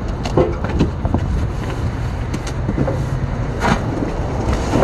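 A heavy cardboard box being hauled by rope over a rooftop parapet edge, with a few short scrapes and knocks, about half a second in and again near the end, over a steady low rumble of road traffic and wind on the microphone.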